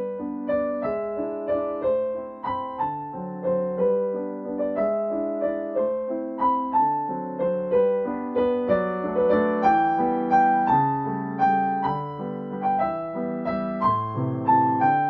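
Background piano music: a steady melody of single notes over soft chords.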